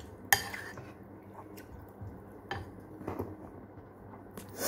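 Metal utensil clinking and scraping against a ceramic bowl of noodles: one sharp clink about a third of a second in, a few lighter taps after it, and a louder rustling scrape near the end.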